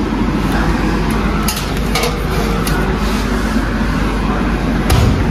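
A metal baking tray going into an oven, with a few light clicks and a thump near the end as the oven door shuts. A loud steady rushing noise runs underneath.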